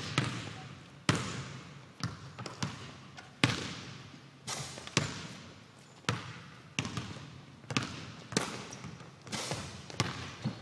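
A basketball bouncing on a hard court, a dozen or so sharp thuds at an uneven pace of about one a second, each with an echoing tail.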